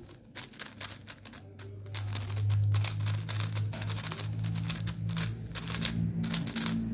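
Megaminx being turned fast during a speedsolve: a rapid, irregular stream of plastic clicks and clacks as its faces snap round. A low steady hum comes in about two seconds in.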